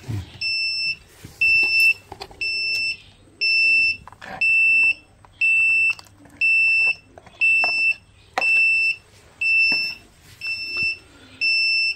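Piezo buzzer beeping about once a second, each beep a steady high tone about half a second long: the flood alarm of an Arduino disaster-warning model, set off again and again because its water-level sensor is still in water. Light knocks of a plastic tub being handled fall between some of the beeps.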